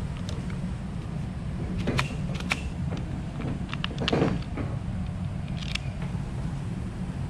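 Small sharp clicks and a knock from motorcycle handlebar controls being fitted by hand: the plastic switch housing and brake master cylinder clamp seated on the bar and a screwdriver worked on the clamp screws. A steady low hum underlies it.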